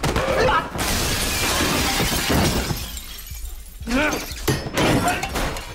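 Film fight sound: a loud shattering crash that lasts over a second and dies away, with men grunting and straining before it and again near the end.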